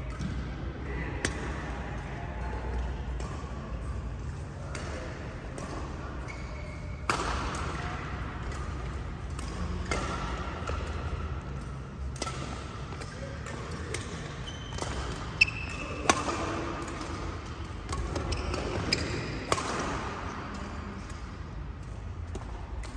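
Badminton rally: rackets striking a shuttlecock with sharp cracks every second or two, the loudest about 7, 15 and 19 seconds in, with short shoe squeaks on the court mat and faint voices echoing in a large hall.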